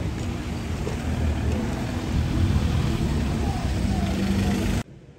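A car and a Citroën van driving slowly past close by on cobbles, their engines running low under steady street noise. The sound cuts off suddenly near the end.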